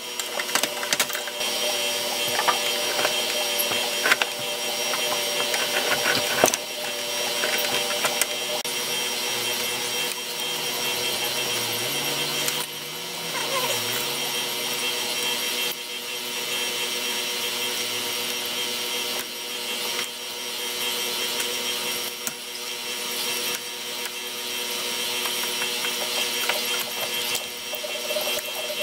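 Sped-up sound of hand-tool work on a steel electrical meter base: a dense, unbroken chatter of fine clicks and metallic rattles, with sharper ticks in the first few seconds.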